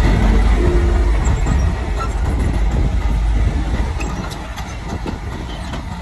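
Komatsu crawler bulldozer's diesel engine running under load as it pushes soil, with a few sharp clicks near the end. The engine grows fainter in the last couple of seconds.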